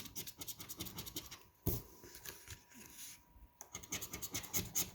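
Scratching the latex coating off a lottery scratch-off ticket in quick, repeated short strokes, pausing briefly twice.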